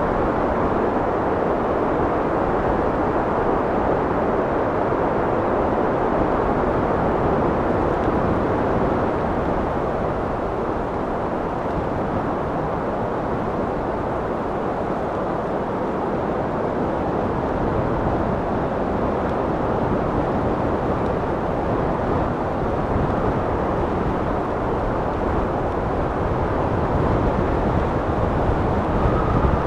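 Wind blowing steadily: an even, low rushing noise that eases a little midway and builds again toward the end.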